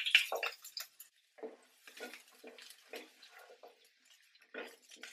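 Chopped shallots landing in a non-stick pan of hot coconut oil and being sautéed with a spatula: a brief louder patter at the start, then short, scattered, irregular scrapes and light crackles.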